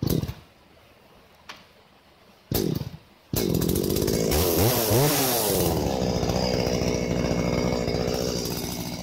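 Echo two-stroke chainsaw being started: it fires briefly twice, catches about three seconds in, revs up and down, then settles to a steady idle.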